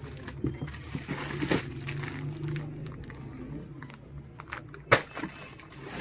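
Plastic-wrapped cloth suit packets rustling and crinkling as they are handled and pulled from a cardboard box, with a sharp knock near the end.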